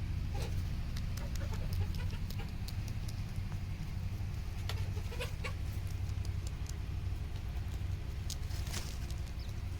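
Chickens clucking now and then over a steady low rumble, with scattered small clicks.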